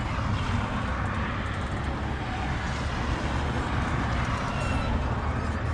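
Diesel pouring in a steady stream from a plastic jug into a clear measuring tank, over a steady low engine rumble.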